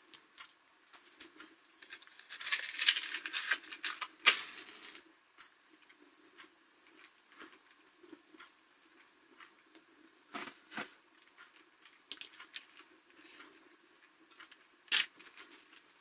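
A wooden match struck on a matchbox, a crackling rasp lasting a couple of seconds that ends in a sharp snap as it catches. Small clicks and taps follow as the matchbox is handled, with two duller knocks about ten seconds in and a sharp tap near the end as the box is set down on the table.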